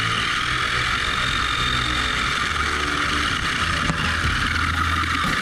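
An RC buggy's electric motor driving a 3D-printed plastic transmission gear, whining as the car drives, the pitch rising early on and dropping near the end, over a gritty mechanical rattle. A single sharp click about four seconds in.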